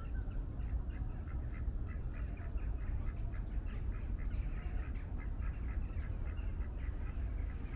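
Birds calling in a fast series of short notes, about four or five a second, over a steady low rumble.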